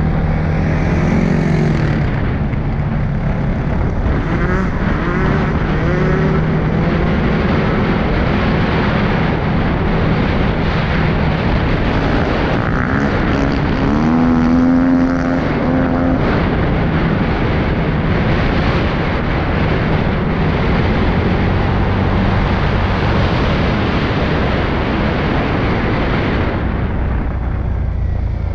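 CFMOTO CForce 625S ATV engine running under way on a dirt trail, its pitch rising and falling with the throttle, with rising revs a few seconds in and again about halfway through.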